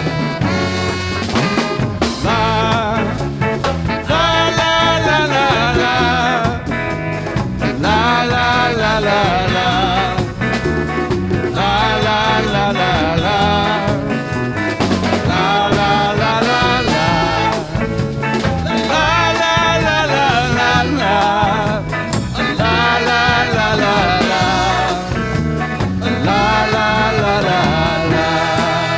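A live band playing an upbeat instrumental break of a song with a swinging, ska-like beat, with a lead melody line weaving over the rhythm section.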